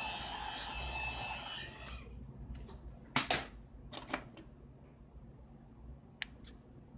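Hot-air tool blowing with a steady hiss, warming the phone to free its battery, then cutting off about two seconds in. After it come a few sharp clicks and taps of metal tools on the phone's parts, the loudest about halfway through.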